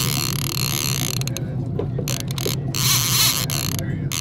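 Trolling reel with a line counter clicking as a ratchet while a hooked king salmon is fought, the fish taking line against the drag. The clicking breaks off briefly a few times.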